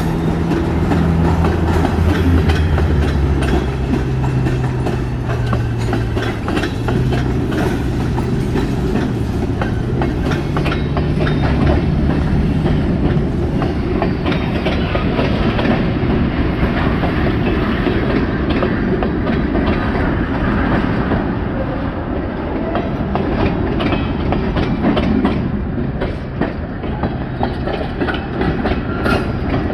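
CSX mixed freight train's tank cars and covered hoppers rolling past close by: a steady rumble with the wheels clacking over rail joints. A low hum wavers in pitch through the first half.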